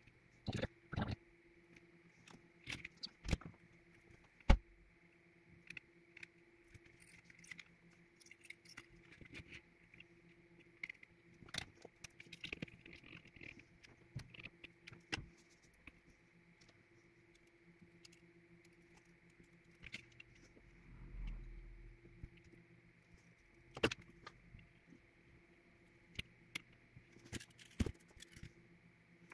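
Irregular small clicks, taps and light metallic rattles from hands handling a potentiometer and its circuit board, with a faint steady hum underneath.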